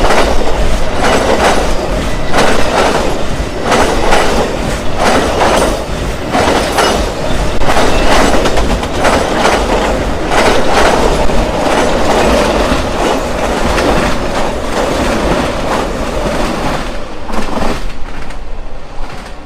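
Amtrak Auto Train's passenger cars and autoracks rolling past at speed, with a steady noise of wheels on rail and repeated clickety-clack as the wheels cross rail joints. The sharpest, highest part of the sound fades near the end.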